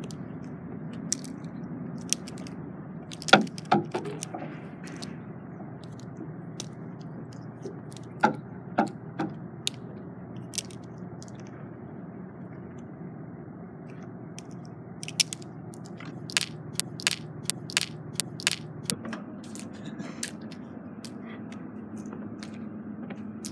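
Wind buffeting the microphone with a steady low rush, broken by clusters of sharp clacks from plastic juggling rings being caught and knocking together.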